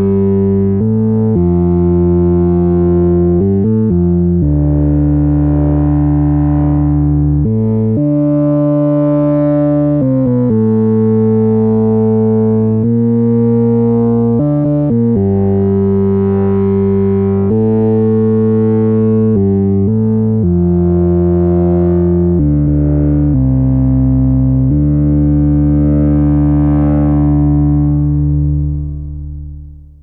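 Newfangled Audio Pendulate software synthesizer, a Buchla-inspired mono synth with a double-pendulum chaos oscillator, playing a lead patch. A one-note-at-a-time melody of held notes, each lasting one to two seconds, dying away at the end.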